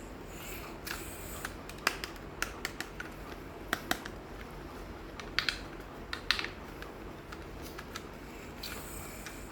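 Irregular light clicks and taps from small objects being handled, scattered through the first two-thirds, over a steady low background hum.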